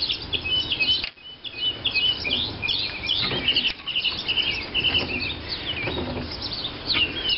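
Many small birds chirping and twittering without a break, with a few faint metal clicks as an adjustable wrench turns the screw of a gear puller.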